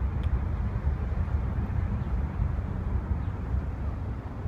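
Boeing 747-400 jet engines at takeoff power heard from far off: a steady low rumble.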